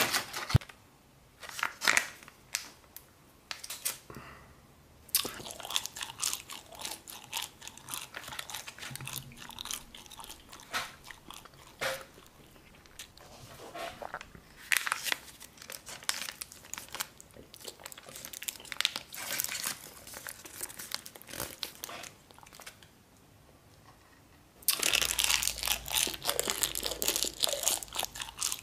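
Plastic garlic-sauce sachet crinkling and crackling in the fingers as it is handled, in scattered bursts of sharp crackles. Over the last few seconds it gives a louder, denser crinkling as the sauce is squeezed out onto the pizza.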